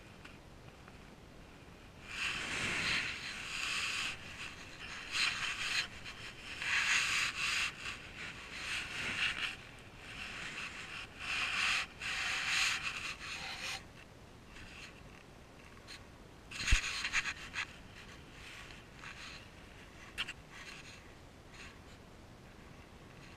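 Close-up rustling and rubbing from a sleepwalking person's movements next to the body-worn camera microphone, in irregular hissy bursts. There is one sharp knock about 17 seconds in.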